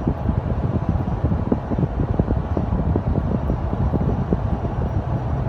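Steady low road and wind rumble inside a moving car, with frequent irregular low buffeting thumps.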